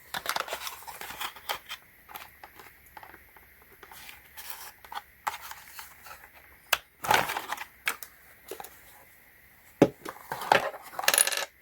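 Handling noise from unboxing a small RC car and its plastic controller: rustling of packaging with scattered clicks and knocks, a louder scrape about 7 s in and a quick rattle of clicks near the end.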